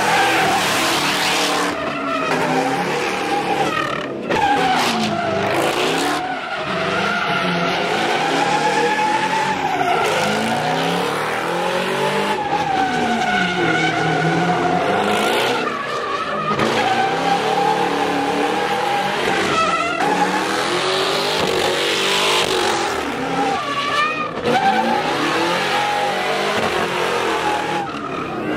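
A car doing donuts with its engine revving hard, the pitch sweeping down and back up every few seconds, over continuous tire screech from wheelspin.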